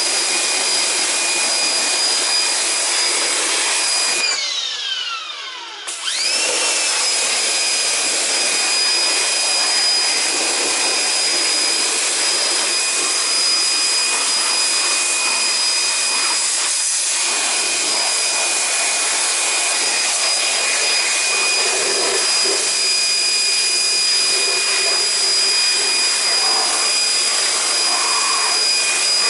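Electric pressure washer running with a steady high motor whine and hiss. About four seconds in, the motor briefly spins down and then winds back up to speed.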